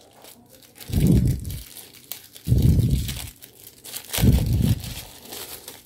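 Hands crinkling and peeling a thin protective wrap off an action-camera mount, in three louder bouts of rustling.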